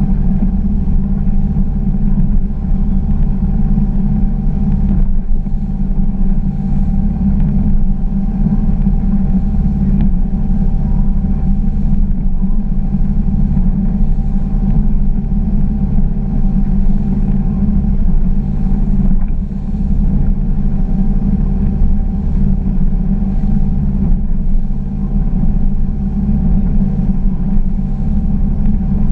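Glastron GS205 bowrider's engine running steadily under way, a constant low drone, with wind and water noise over it.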